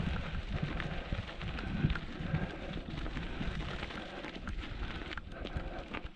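Bicycle tyres rolling over a loose, stony gravel track: a steady crunch of grit with many small clicks of stones under the wheels, over a low rumble of wind on the microphone.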